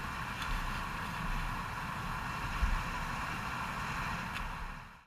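Claas Lexion 770 TerraTrac combine harvester running steadily, a low rumble under a rushing hiss, which fades and cuts off near the end.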